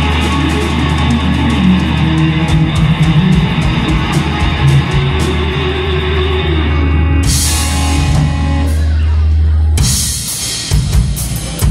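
Live rock band playing an instrumental passage: electric guitars and bass over a drum kit. Cymbal crashes come about seven and ten seconds in, and the sustained low bass note stops near the second one.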